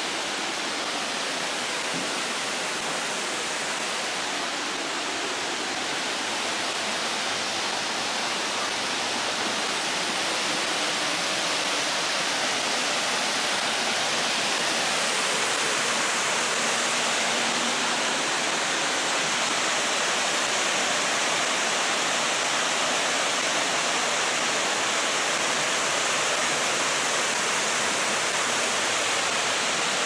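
Steady rush of a waterfall pouring over rock ledges, growing slightly louder about ten seconds in.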